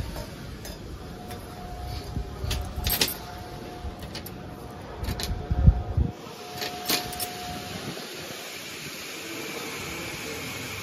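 Stainless steel hopper being fitted and clamped onto a powder packaging machine's filler: scattered light metal clinks and handling knocks, with one louder thump about halfway through, over a faint steady tone.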